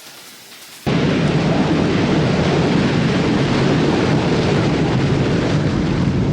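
Strong storm wind buffeting the microphone: a loud, steady, low rumbling rush that starts suddenly about a second in.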